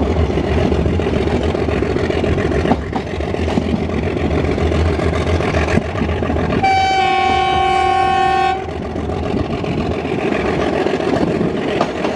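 Diesel-hauled passenger train running, a steady rumble of engine and coaches on the track. About six and a half seconds in, the locomotive's horn sounds one steady blast of about two seconds.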